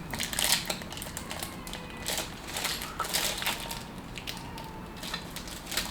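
Close-up chewing and crunching of a chamoy pickle, with scattered small crackles and clicks.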